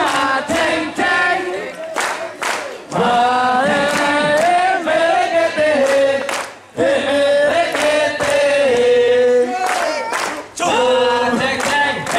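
A group singing a song together, with sharp hand claps over the singing.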